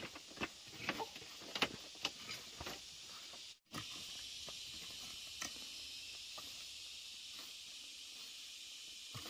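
A run of irregular sharp knocks and scrapes, then, after a sudden cut about three and a half seconds in, a steady high hiss.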